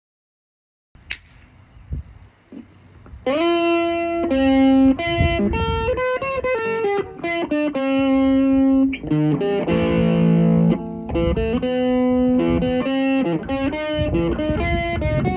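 Guitar being played: after a second of dead silence and a sharp click, picked single notes start about three seconds in and ring out one after another as a melody, with a fuller strummed chord about ten seconds in.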